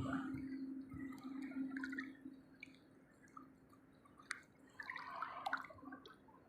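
Water dripping and lapping softly in small splashes and clicks, with a faint steady hum through the first two seconds and a brief patch of splashing about five seconds in.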